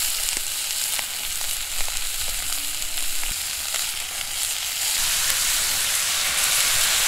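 Thin-sliced beef sizzling in a steel frying pan over a wood fire, with a few light utensil clicks against the pan. About five seconds in the sizzle grows louder and more even as sauce is poured over the meat.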